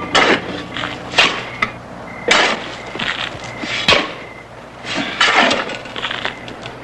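Shovels digging into loose, sandy earth: the blades scrape and chunk into the dirt, one stroke about every second, some coming close together.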